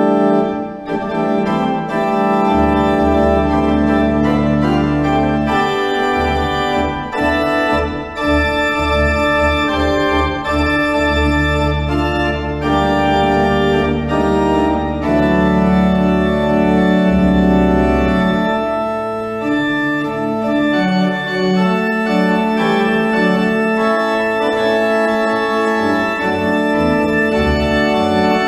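Organ playing slow, sustained chords over deep bass notes; the bass drops out about two-thirds of the way through.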